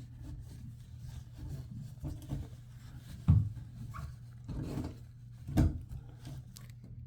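Handling noises: a few dull knocks, the sharpest about three seconds in, with some rubbing, over a steady low hum.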